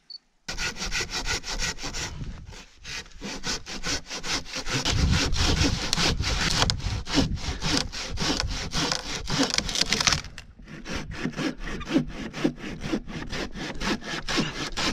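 Crosscut saw cutting through a large downed log: steady back-and-forth strokes of the blade rasping through the wood. The sawing starts about half a second in, stops briefly about ten seconds in, then carries on.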